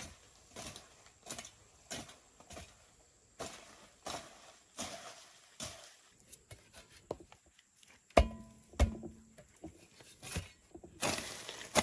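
Footsteps at a steady pace, about one every 0.7 s, then a few light knocks and one louder knock about 8 seconds in. A denser clatter starts near the end.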